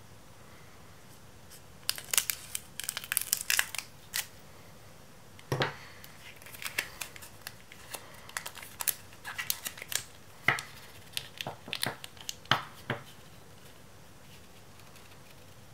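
Scissors snipping open the foil wrapper of a Pokémon trading-card booster pack, then the foil crinkling and crackling in quick irregular bursts as the cards are worked out of it.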